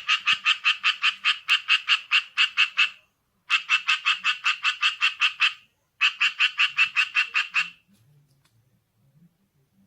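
Japanese tree frog calling: three bouts of rapid, evenly repeated raspy 'kwe-kwe-kwe' notes, about six a second, with short pauses between bouts. It is loud, and the calling stops about eight seconds in.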